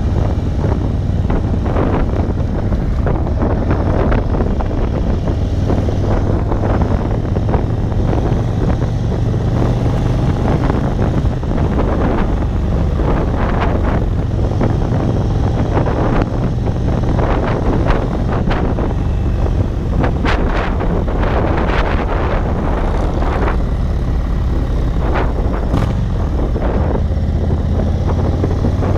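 The 2022 Indian Chief Dark Horse's air-cooled Thunderstroke 116 V-twin runs steadily as the bike rides along, with heavy wind buffeting on the camera microphone.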